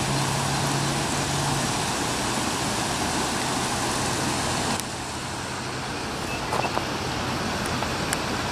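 Steady rush of water pouring over small stepped stone cascades, becoming quieter and duller about five seconds in.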